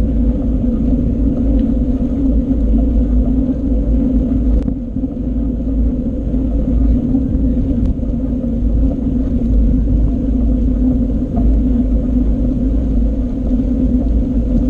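Steady rumble of wind buffeting and tyre noise on an action camera's microphone while riding a bicycle, with a couple of faint clicks, such as bike rattles, about 5 and 8 seconds in.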